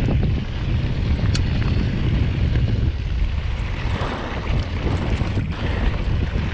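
Wind buffeting a GoPro's microphone while riding a mountain bike down a dirt trail: a steady low rumble, with a few sharp clicks and rattles.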